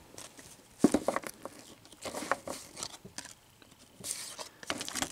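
Stack of paper baseball cards being shuffled and flipped through by hand: short bursts of rustling and light card snaps, in three clusters about a second in, around two seconds and again around four seconds.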